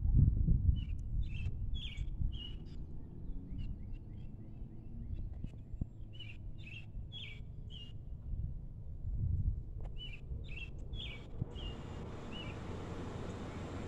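A bird chirping in runs of short, sharp notes, five or six to a run, repeated several times, over a low rumble. A steady hiss comes in near the end.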